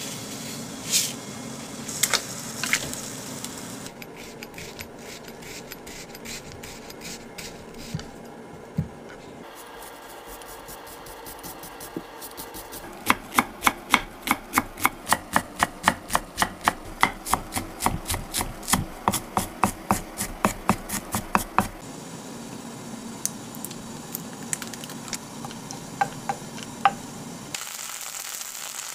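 Kitchen knife chopping a vegetable on a wooden cutting board, in a quick even run of about four strokes a second for about nine seconds from the middle on. Before it come scattered kitchen handling sounds.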